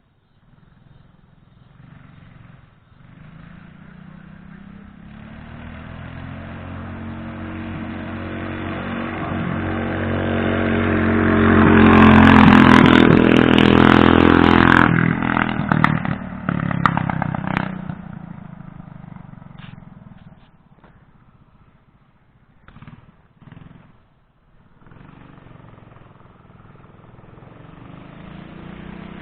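Mini bike's small single-cylinder engine with a header exhaust riding up, passing close and riding away. Its engine note swells to a loud peak about halfway through and fades out. Near the end it starts coming back.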